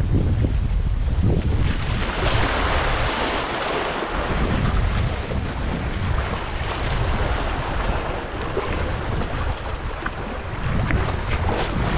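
Wind buffeting the microphone with a low rumble, over sea waves washing and splashing against shoreline rocks.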